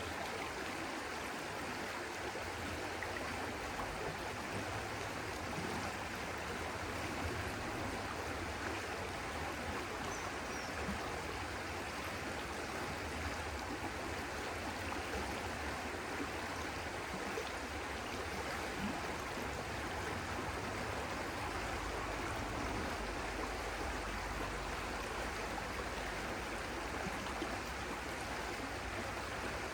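Water flowing steadily, an even, unbroken rush like a stream.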